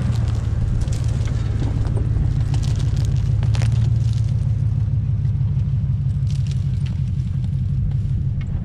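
Ford Expedition's V8 engine running at low revs as the SUV crawls past off-road and pulls away, a steady low rumble that is loudest about three to four seconds in. Tires crackle over dry brush and dirt in the first half.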